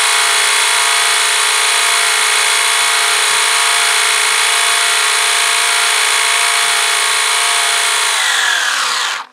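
Electric RC motor spinning a 3D-printed truggy drive train (printed gears, drive shafts and differential) at full throttle off the ground, a loud steady whine. Near the end it winds down in pitch and stops.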